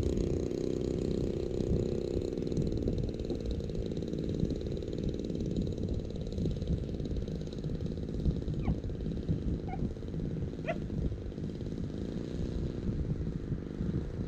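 Stinger 26cc two-stroke gasoline engine of a large RC model biplane idling steadily on the ground, a rough, even drone.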